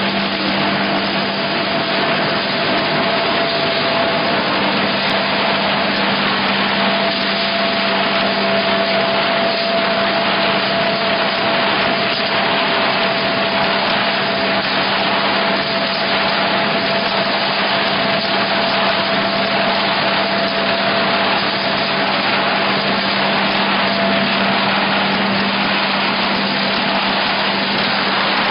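Rotary die-cutting machine running continuously, feeding printed carton blanks through its rollers: a steady mechanical whir with a constant low hum and a fainter high tone.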